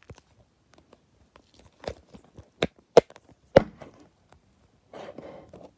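Plastic felt-tip markers being set down on a wooden desk: about four sharp clicks and knocks over a couple of seconds, followed by a brief rustle near the end.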